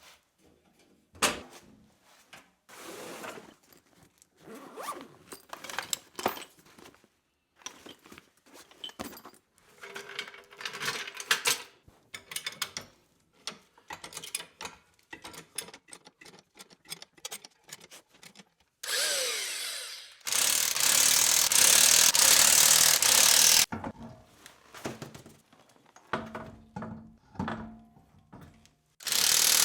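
Tools at work on a tire change: scattered clicks, knocks and ratcheting as the wheels are swapped for snow tires. A power tool runs in a long loud burst about two-thirds of the way through, with a few shorter runs near the end.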